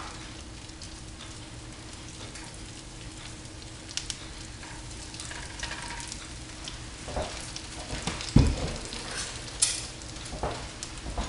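Breaded chicken cutlets searing in a little olive oil in a stainless steel skillet, a steady light sizzle with no popping: the sign the pan is at medium heat and not too hot. A few knocks break in, the loudest a low thump about eight seconds in.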